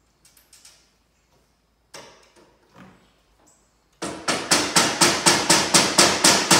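A few light knocks, then about four seconds in a small hammer starts tapping rapidly and evenly, about five strikes a second, driving glazier's points into a wooden window sash to hold the glass pane.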